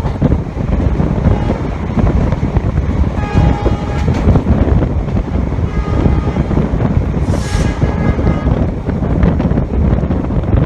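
Train running noise, a loud steady rumble and wind from on board the coaches, with the WDP-4D diesel locomotive's horn sounding ahead several times in short blasts. A brief hiss comes a little past halfway.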